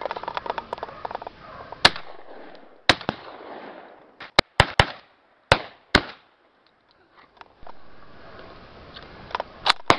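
A string of shotgun shots: about ten sharp bangs spread over several seconds, several in quick succession in the middle and two close together near the end.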